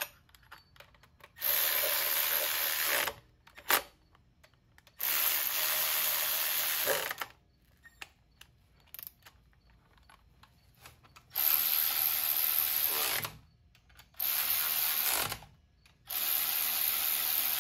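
A handheld power tool runs bolts in, working the long accessory-bracket bolts on an LS engine in five runs of one to two seconds each. Small clicks of parts and tools being handled come between the runs.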